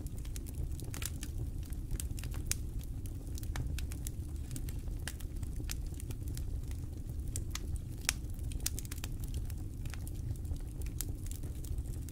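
Wood campfire crackling: irregular sharp pops and snaps over a low steady rumble.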